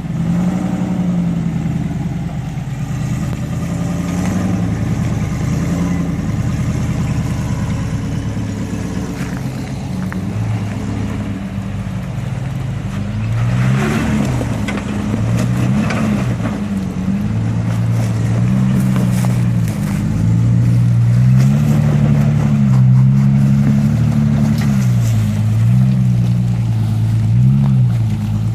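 Four-wheel-drive engine revving up and down repeatedly while crawling over rocks, getting louder in the second half. A short clatter of knocks about halfway through.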